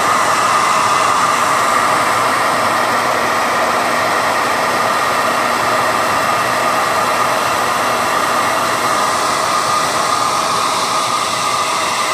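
Hand-held hair dryer running steadily, a constant rush of blown air with no change in speed.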